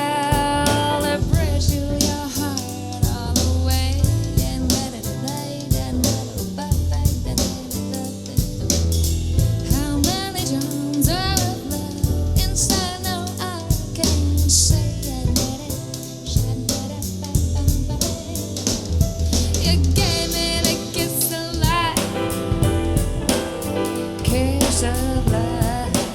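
Soul-jazz song with singing over a drum kit and bass line, played back through an in-ear monitor for a sound comparison.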